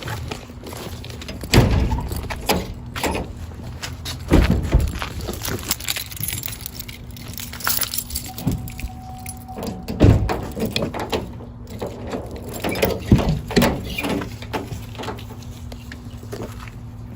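Scattered knocks and thuds of things being handled, over a low steady hum.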